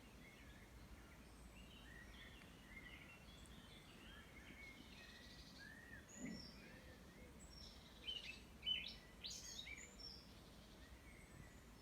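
Several small songbirds singing and chirping faintly, with short overlapping whistles and trills, over a faint steady background hum. A louder flurry of calls comes about eight seconds in.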